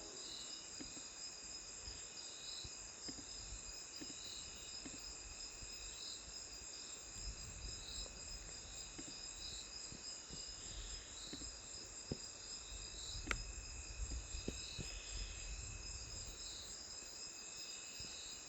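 Insects chirring steadily, high-pitched and pulsing about once every second, with scattered soft clicks and one sharper click about 13 seconds in.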